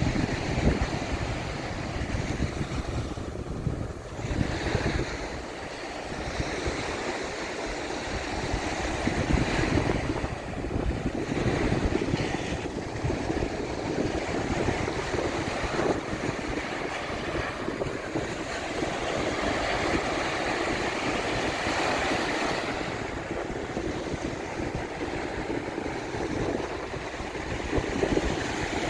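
Waves breaking on a beach, with a steady onshore wind buffeting the microphone and adding a low rumble.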